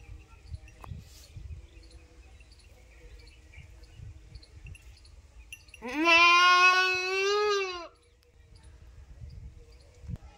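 A Totapari doe goat bleats once, a single call about two seconds long that starts about six seconds in. Its pitch rises at the onset and then holds with a slight waver.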